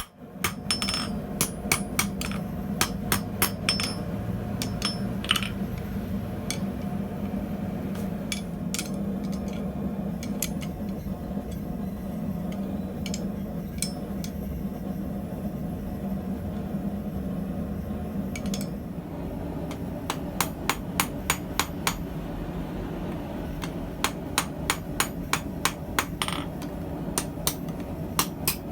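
Blacksmith's hammer striking hot steel on an anvil while forging tongs, in runs of quick blows with long gaps between, over a steady low rumble.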